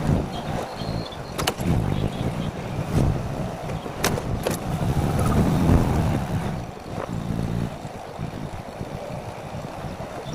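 A vehicle driving along a road: a steady low engine and road rumble that swells and eases, with a few sharp knocks, the sharpest about four seconds in.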